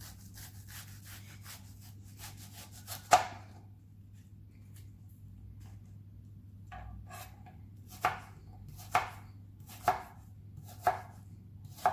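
Knife chopping an onion on a cutting board. Light quick taps come first, then a sharp knock about three seconds in, and near the end single chops about once a second.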